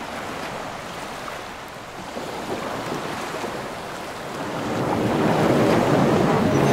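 Ocean surf and wind noise: a steady rushing that grows louder over the last couple of seconds.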